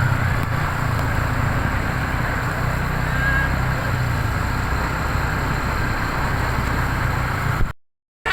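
Steady low rumble of a bus engine with road noise, cutting off suddenly near the end.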